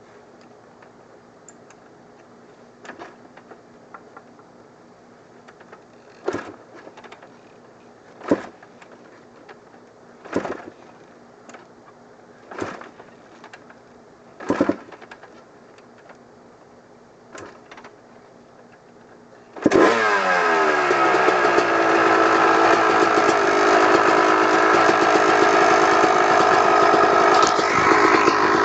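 2002 Kawasaki KX250 two-stroke engine: single thumps about every two seconds, like kick-start strokes, then the engine catches about two-thirds of the way in and runs loudly, its pitch dropping briefly before it settles into a steady run. The owner hears a ticking from this engine that has been blamed on the clutch basket, the power valve, or a worn crank rod or crank bearing.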